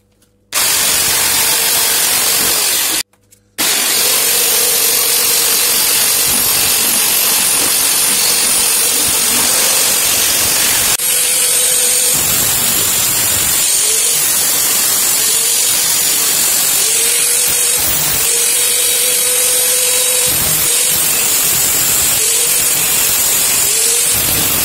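Angle grinder with a cutting disc cutting into sheet metal: a loud hissing grind over a steady motor whine that sags again and again as the disc is pressed into the metal. It stops briefly about three seconds in, then runs on.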